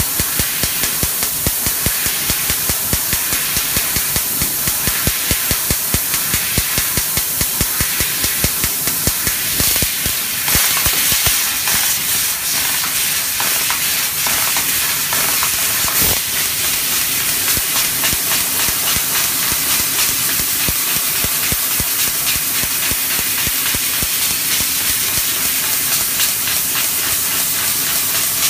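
Fiber laser cutting machine cutting sheet metal: a steady, loud hiss of assist gas from the cutting head, with a fast run of short clicks, about three a second, as it pierces and cuts small holes through the first part.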